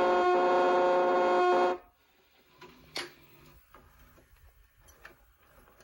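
Loud VHS end-of-tape 'moaning noise' playing through the TV: a steady droning chord of several pitches with a couple of brief dropouts, cutting off abruptly about two seconds in. A click follows about a second later, then faint clicks from the VCR.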